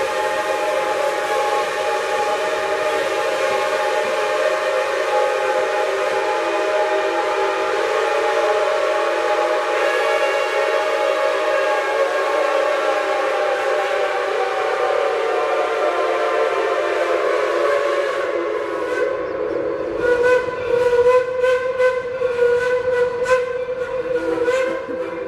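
Steam locomotive chime whistles blowing a long, steady chord of several notes, one note sagging lower before the long blast ends. Then a run of short toots near the end.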